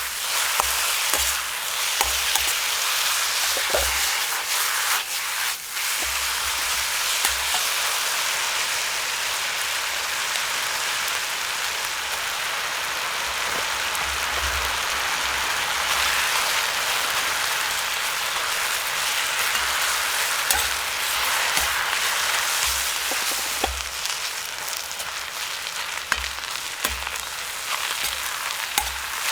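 Food frying in an iron wok over a campfire: a steady hissing sizzle, with a few short clicks and knocks scattered through it.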